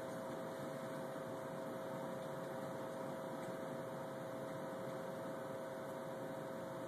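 Steady electrical hum with a faint, even hiss, unchanging throughout, with no clicks or knocks.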